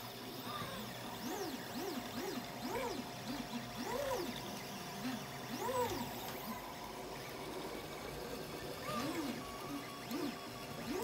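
A 3D printer's stepper motors whining mid-print, in repeated rising-and-falling glides as the print head speeds up and slows down on each move, over a steady faint hum.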